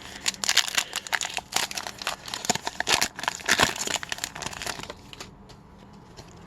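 Upper Deck hockey card pack wrapper being torn open and crinkled by hand: a quick run of sharp crackles that dies away about five seconds in.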